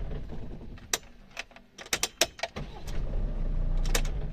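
Mercedes Sprinter diesel engine shutting off in about the first second, then starting again about two and a half seconds in and running. Sharp knocks come at the shutdown and the restart, the sign of a worn dual-mass flywheel knocking as the engine stops and starts.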